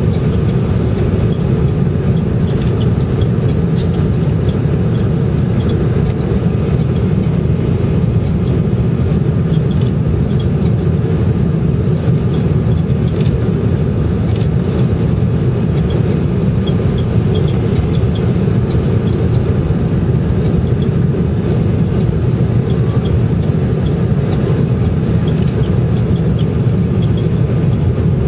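Steady cabin roar of a jet airliner on landing approach: engine and airflow noise heard from a window seat over the wing, a deep even rumble that stays at one level.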